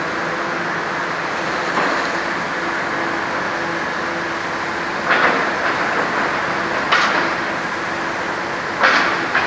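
Old FMC Link-Belt crawler crane's straight-piped diesel engine running steadily, with four short, sharper noises over it.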